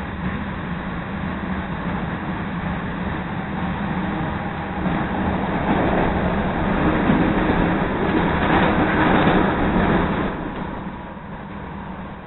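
CTA Red Line rapid-transit train running along the track, heard from inside the car: a steady rumble of wheels and traction motors. It grows louder about halfway through and eases off near the end.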